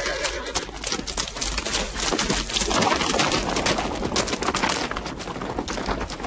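Hoofbeats of several horses on dry ground: a dense, continuous clatter of many hooves at once.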